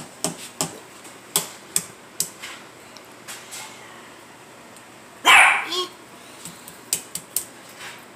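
A small dog barks briefly about five seconds in, the loudest sound here. Light taps and clicks come before it and again near the end, from an egg being handled over a mixing bowl.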